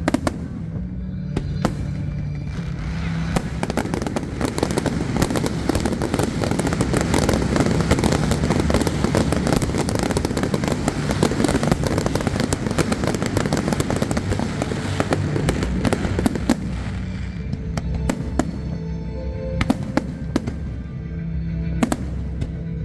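Fireworks display: a dense barrage of crackling bursts and bangs fills the middle of the stretch, thinning out to separate booms near the end, with music playing underneath.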